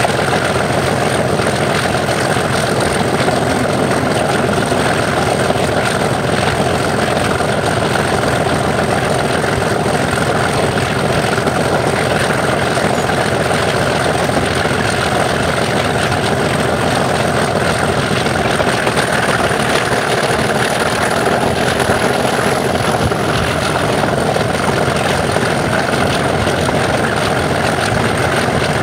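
British Rail Class 37 diesel locomotive's English Electric 12-cylinder turbocharged engine working hard with a steady, loud thrash, heard from the cab window. A thin high turbocharger whistle rides over it throughout, rising slightly in pitch for a few seconds past the middle.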